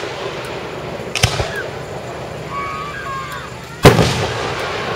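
Aerial fireworks shells bursting: a sharp crack about a second in, then a much louder boom near the end that trails off into a rumbling echo.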